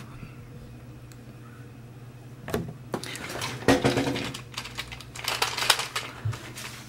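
Rapid hard-plastic clicking and clattering from the two-player Iron Man vs Hulk punching toy being worked, starting about two and a half seconds in after a faint low hum.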